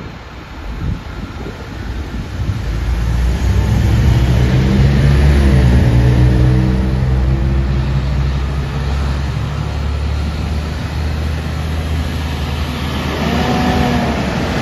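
Pierce fire engine's diesel engine pulling away and accelerating, its note rising and falling through the gears. It grows louder over the first few seconds as it comes closer, holds steady, then climbs again near the end.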